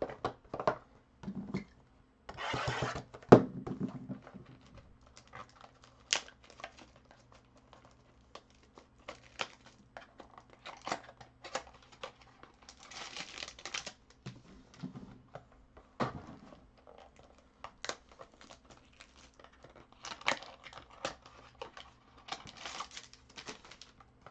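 Foil trading-card pack wrappers crinkling in short bursts, among scattered clicks and taps of card packs and plastic card holders being handled and set down on a table. The loudest is a sharp click about three seconds in.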